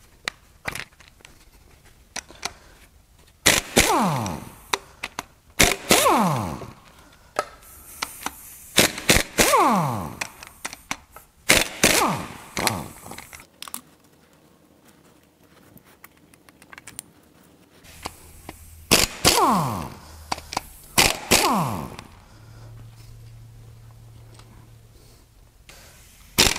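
Pneumatic impact wrench hammering loose connecting-rod cap bolts in several short rattling bursts, each trailing off in a falling whine.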